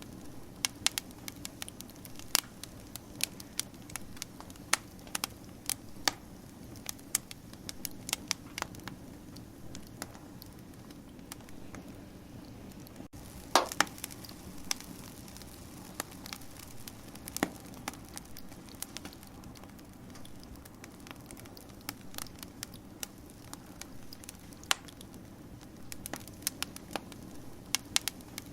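Wood fire crackling: irregular sharp pops and snaps over a steady low rumble, with one louder pop about halfway through.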